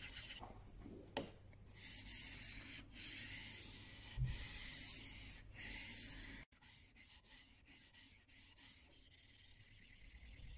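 Steel back of a Marples Gold Chip chisel being rubbed back and forth on a wet 1200-grit waterstone: a steady scraping hiss with brief breaks as the strokes change direction. About six and a half seconds in, the sound drops suddenly and goes quieter and choppier, with quick short strokes.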